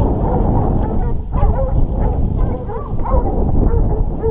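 A pack of beagles baying in full cry as they hunt wild boar. Their wavering calls overlap continuously over a loud low rumble.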